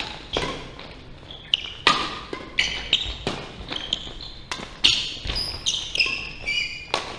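Badminton doubles rally: a quick exchange of sharp racket strikes on the shuttlecock, several a second at its busiest, with short high squeaks of court shoes on the wooden floor between the hits.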